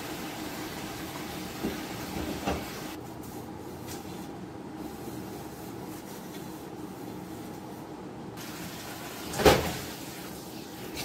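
Dishes and steel utensils being handled at a kitchen sink: a couple of light knocks a second or two in, then one louder clatter near the end, over a steady background hum.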